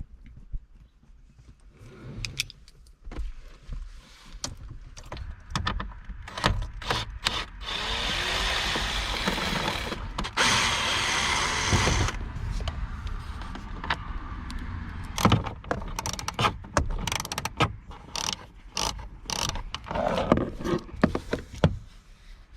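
Hand tools clicking and rattling while screws are backed out of the dash panel above the gauge cluster, with many short sharp clicks. In the middle comes a steady rasping noise lasting about four seconds, broken once.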